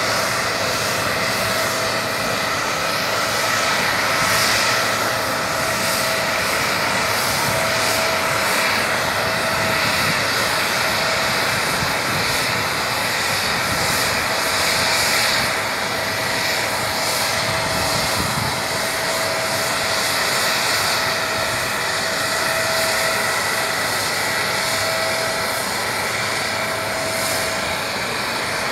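Steady whine and rush of an aircraft turbine running continuously, with a few held tones and no change in pitch.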